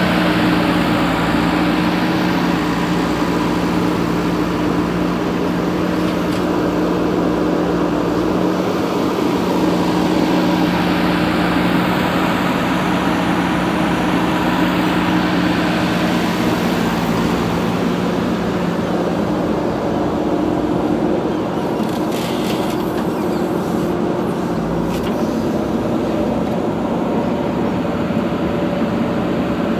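Heavy diesel engine running steadily at working revs, with a few sharp metallic knocks about two-thirds of the way through.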